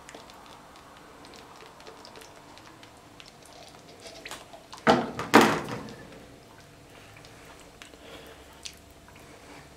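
Water poured into a frying pan of calcined soda (sodium carbonate), the pour stopping within the first few seconds, then faint scattered crackling ticks as the powder takes up the water. About five seconds in, two loud knocks close together.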